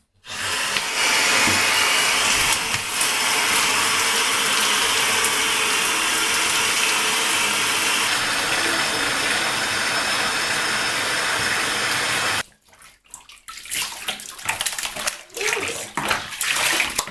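Water running steadily from a handheld shower sprayer into a bathtub, rinsing a French bulldog's coat; it cuts off suddenly about twelve seconds in, followed by a few short scattered sounds.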